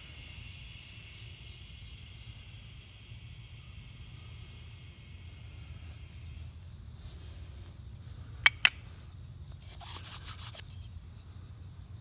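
Steady high chirring of insects throughout. A little past halfway, two sharp clicks in quick succession, then a brief rustle, as the wooden fireboard and spindle are picked up and handled.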